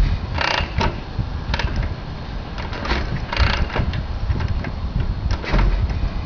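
A 1940 Harley-Davidson Knucklehead V-twin being kick-started, the pedal stomped over and over with irregular sharp mechanical clanks over a low rumble; the engine turns over without catching.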